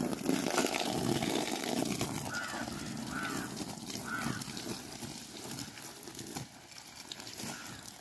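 Water from a garden hose splashing onto the plastic liner of a drained pond, a steady hiss that gets quieter toward the end. A bird calls a few short times in the middle.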